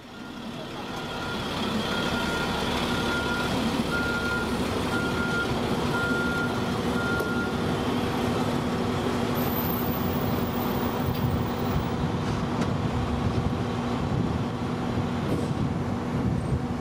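Flatbed truck's engine running steadily, with its reversing alarm beeping about seven times, roughly once a second, during the first half.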